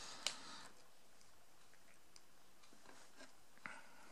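Quiet room tone with a few faint clicks of small metal padlock parts being handled: a sharp click just after the start and a light tick near the end.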